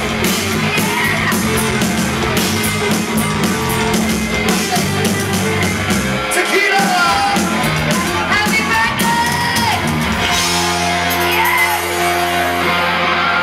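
Live rock band playing, with singing and shouting over it. About ten seconds in the band settles on a long held chord.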